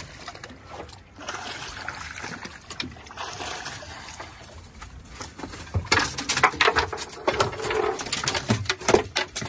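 Bluefish thrashing and splashing at the surface beside the boat, then a run of loud knocks and thumps as the landing net and fish come over the gunwale onto the deck.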